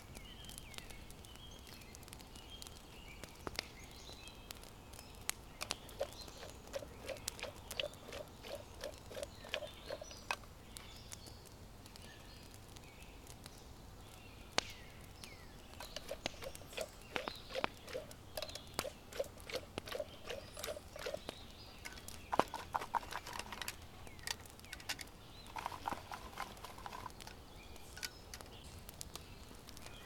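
Wood campfire crackling with scattered sharp pops and clicks. Twice, a run of soft, evenly repeated low notes comes in, about three a second, and short higher chirping bursts follow near the end.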